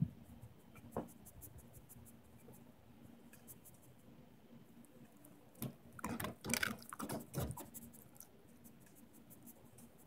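A dog sniffing and snuffling with its nose pushed into a fabric snuffle mat, with many small clicks as it roots through the strips. A run of louder sniffs comes about five and a half to seven and a half seconds in.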